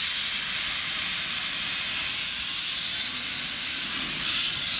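Steam hissing from a small 0-4-0 saddle-tank steam locomotive's open cylinder cocks, a steady hiss that swells at the start and again near the end.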